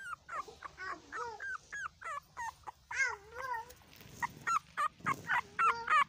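Newborn puppy whimpering and squeaking: a quick run of short, high cries, several a second, with a brief lull about four seconds in.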